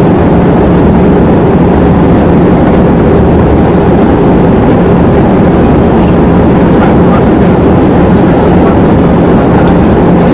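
Airliner cabin noise on the approach: steady, loud engine and airflow noise inside the cabin, with a steady low hum under it.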